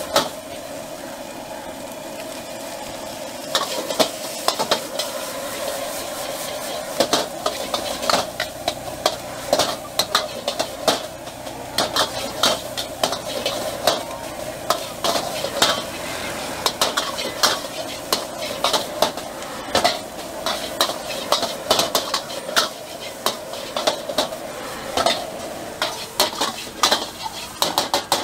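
Stir-frying in a large steel wok over a gas burner: the food sizzles steadily while a metal ladle and spatula scrape and clank against the wok, the clanks coming thick and fast from about three seconds in.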